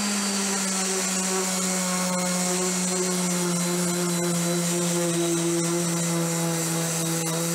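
Corded DeWalt random orbital sander running at full speed while sanding a rough, weathered wooden board. It gives a steady motor hum with a sanding hiss, and the pitch sags very slightly under load.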